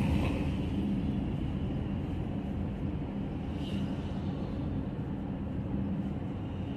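Steady low rumble of a car running, heard from inside its cabin, easing slightly in level.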